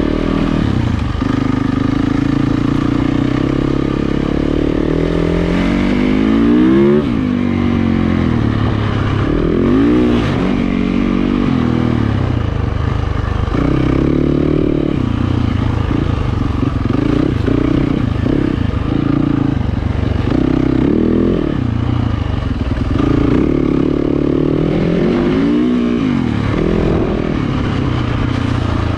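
2020 Yamaha YZ450FX 450 cc four-stroke single-cylinder dirt bike engine being ridden on a trail, its revs rising and falling over and over with the throttle and gear changes.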